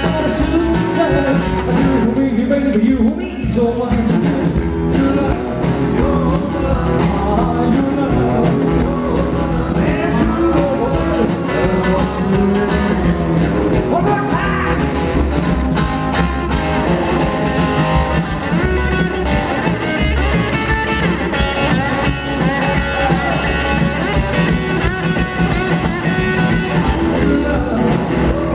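Live rock and roll band playing: upright double bass, strummed acoustic guitar and electric hollow-body guitar, with a sung lead vocal.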